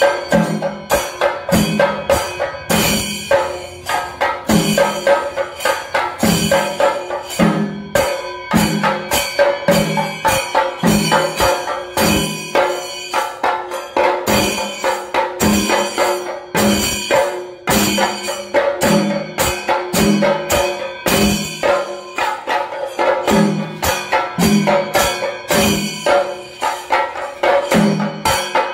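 Kerala temple percussion ensemble of drums and small cymbals playing a steady driving beat, about three heavy strokes every two seconds under dense rapid strikes, over a held wind or drone tone, as accompaniment to the Sreebali procession.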